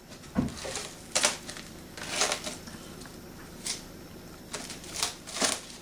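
Plastic food packaging being handled and opened: a string of about seven short crinkling rustles, spaced irregularly.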